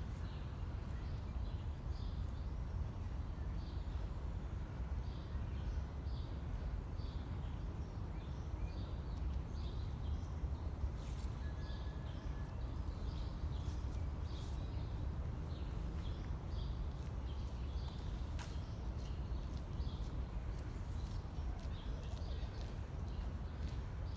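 Small birds chirping in short, repeated high notes over a steady low city rumble.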